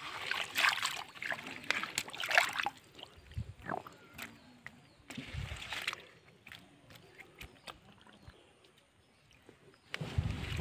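Water splashing and sloshing in shallow muddy water as hands grab through a pile of caught fish. It comes in short bursts with quieter gaps between them.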